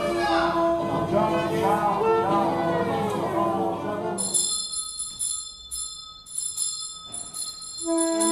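Contemporary electroacoustic music: a held note under a dense layer of bending, voice-like pitched lines, giving way about halfway through to high, steady bell-like ringing tones. A strong held reed-instrument note comes back in near the end.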